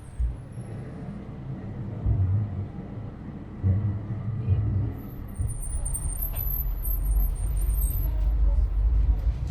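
Heritage tram running on its rails: a low rumble with a few deep knocks, swelling to a steady heavier rumble about halfway through as it picks up. Faint high chirps come in around the middle.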